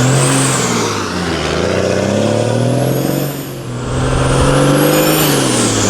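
Truck engine revved up and down about three times, with a high whistle rising and falling along with each rev.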